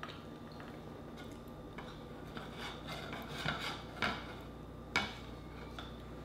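Close handling sounds at a plate of mussels: soft rubbing and scraping as rice is pinched by hand from a wooden bowl, with three sharp clicks of dish, spoon or shell about three and a half, four and five seconds in.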